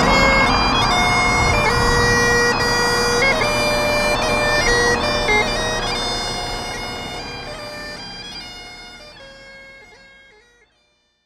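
Great Highland bagpipes playing a tune over their steady drones. The piping fades away gradually through the second half and dies out to silence shortly before the end.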